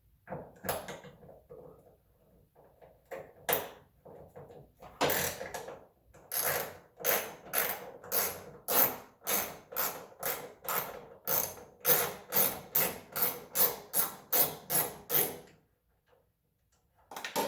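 Ratchet wrench being worked back and forth on a hood hinge bolt, making an even run of clicking strokes about three a second that stops near the end. It follows a few scattered knocks of tool handling.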